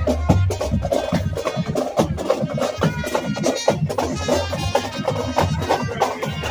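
Loud music with a deep bass line and a busy, fast percussion rhythm.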